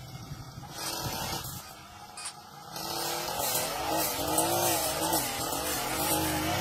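Brush cutter engine running, its speed rising and falling as it cuts; it grows louder about three seconds in.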